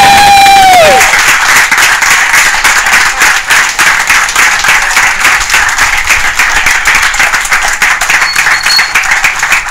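A small crowd applauding, the clapping dense and steady. It opens with a long, high held cry from the onlookers that drops in pitch and breaks off about a second in.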